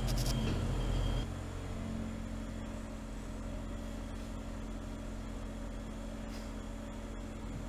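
Steady low mechanical hum with a few held tones, louder for about the first second, then lower and even.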